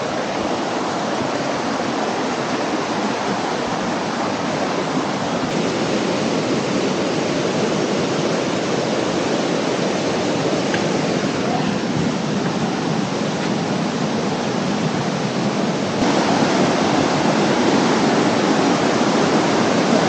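Water of a rocky stream rushing and splashing over boulders in a steady rush, which steps up a little louder about four seconds before the end.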